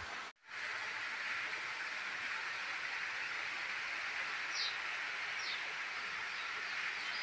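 Steady background hiss that drops out for an instant just after the start, with two faint short high chirps about two-thirds of the way through.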